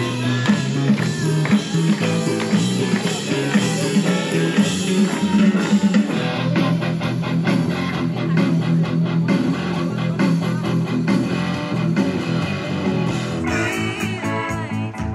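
A live band playing rock music with electric guitars, bass and a drum kit. Near the end it changes abruptly to a different song, a singer over guitar.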